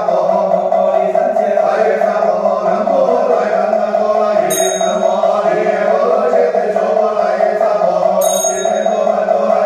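Buddhist chanting in a steady, level monotone, with a small bell struck twice, ringing briefly, about four and a half and eight seconds in.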